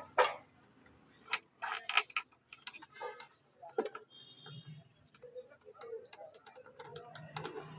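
Irregular light clicks and taps of plastic as the control-panel board is pressed and fitted into an induction cooktop's casing.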